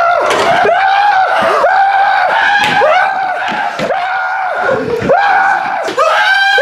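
A man screaming in a high voice, a rapid unbroken string of loud yells, each dropping in pitch, about two or three a second.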